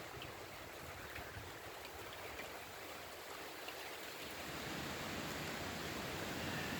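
Steady rushing of storm wind outdoors as a summer storm moves in, growing a little louder about two thirds of the way through.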